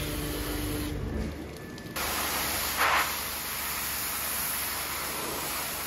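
Hot-water pressure washer spraying a car's engine bay: a steady hiss of the water jet, which drops away briefly about a second in and comes back at full strength.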